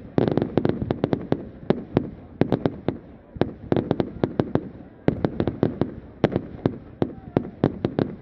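Firework display: a fast, irregular barrage of sharp bangs and cracks, about five a second, over a low rumble, with brief lulls.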